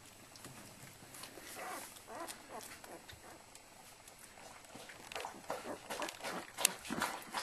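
Newborn flat-coated retriever puppies squeaking and whimpering in short, high cries, a few about two seconds in and more often in the last couple of seconds. There are small clicks among them and one sharp click near the end.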